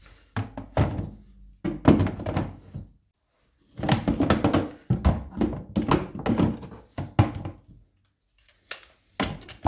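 Tools being set down and shifted inside a hard plastic toolbox: a run of dull thunks and knocks, with short pauses between clusters.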